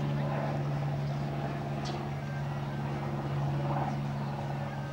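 A steady low mechanical hum, like a motor or engine running at an even speed, with a single short click about two seconds in.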